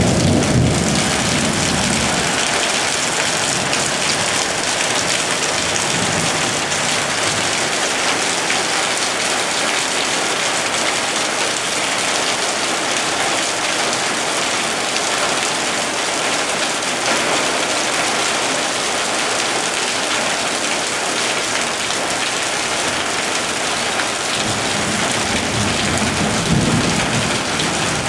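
Heavy tropical downpour: a steady, dense hiss of rain pouring onto pavement and shrubs. Low rumbles, taken for thunder, come right at the start and again near the end.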